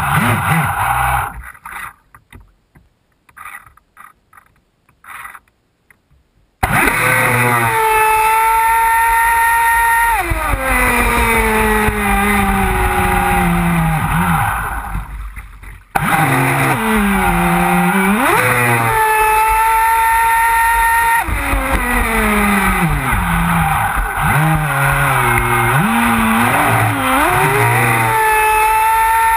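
Onboard sound of a ProBoat Voracity RC speedboat's brushless electric motor whining at speed over the hiss of spray, its pitch sliding down and back up as the throttle is eased and opened. After a few seconds of near silence, the sound cuts in suddenly and then drops out briefly around the middle.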